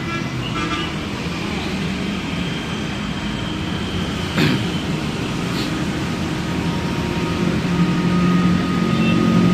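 Large bus's diesel engine running close by, with a single sharp knock about four and a half seconds in; the engine sound grows louder near the end.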